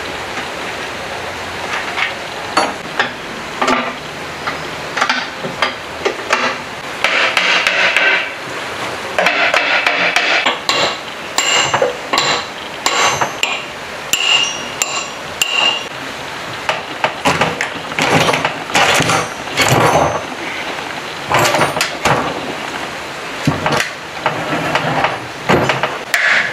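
Hammer blows on a steel rod and on the generator's metal housing as it is knocked apart: sharp metal clanks, some with a brief ringing, mixed with scraping and handling of the loose metal parts.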